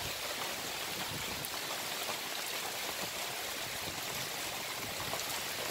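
Steady rain falling, a constant even hiss.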